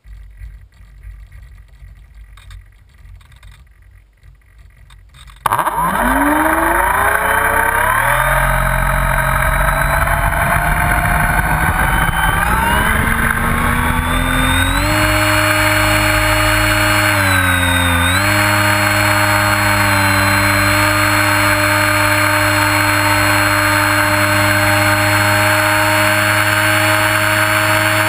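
Motor and propeller of an RC model Trojan T-28, heard from onboard: low handling noise for about five seconds, then the motor starts abruptly and its pitch climbs through the takeoff run. After a brief dip it holds a steady high pitch in flight.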